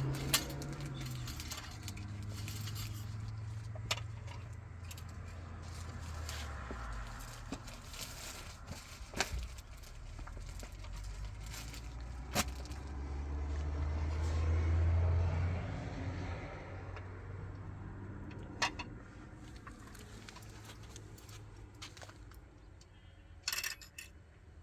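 A vehicle engine running with a low hum that shifts in pitch and swells for a couple of seconds near the middle, with scattered sharp clicks and rattles.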